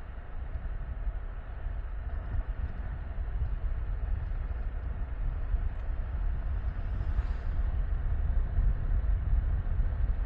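Riding noise from a Yamaha Tricity 155 three-wheeled scooter: deep wind rumble on the camera microphone over the running of the scooter, growing gradually louder.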